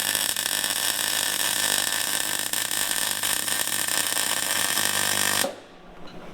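Power tool, most likely an angle grinder, cutting through a steel valve spring compressor: a steady, loud whine over a hiss that stops abruptly about five and a half seconds in.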